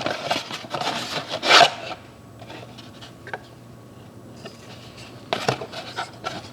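Rubbing and rustling of a new camshaft position sensor and its packaging being handled, loudest in the first two seconds, then quieter, with a few light clicks and knocks near the end.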